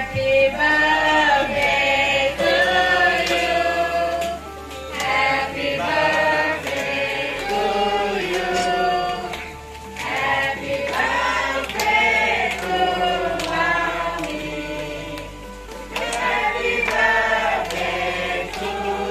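A group singing a birthday song together, led by a woman's voice over a microphone, in sung phrases with short breaks between them.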